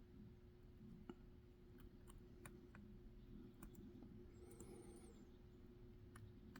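Faint, scattered clicks of a flag pick and Z-bar tension tool working the pins and tight warding inside an ABUS EC75 padlock while it is being picked.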